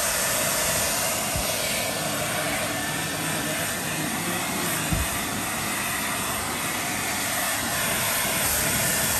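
Handheld hair dryer blowing steadily. A soft thump about five seconds in.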